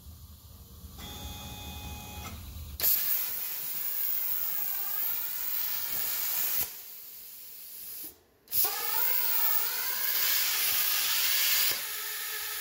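CNC plasma cutter's torch cutting a steel tube on a stepper-driven rotary axis: a loud, steady hiss that starts suddenly about three seconds in, with a faint whine rising and falling in pitch as the tube is turned. The hiss drops off past the middle, stops for a moment, then comes back for the second notch.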